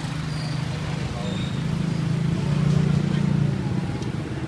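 Street traffic: a vehicle engine running close by, swelling louder about halfway through and easing off near the end, over a background of people talking.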